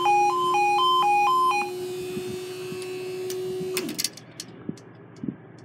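Level crossing two-tone yodel alarm warbling rapidly between two notes, cutting off about a second and a half in, over a steady hum from the barrier machinery as the barrier arms rise. The hum winds down in pitch near four seconds in, followed by a few sharp clunks as the barriers come to rest upright.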